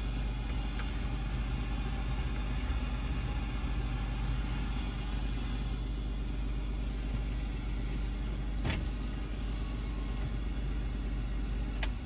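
A steady low rumble under an even hiss, with a sharp click about nine seconds in and another just before the end.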